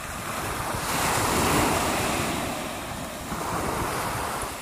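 Small waves breaking and washing up a shingle-and-sand shore, the surf swelling to its loudest about a second and a half in, then easing.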